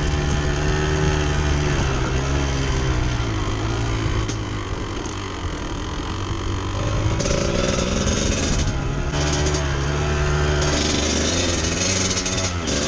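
Motorcycle engine running at low revs, its pitch sagging a few seconds in, then picking up again from about seven seconds, with a rougher, hissing edge added.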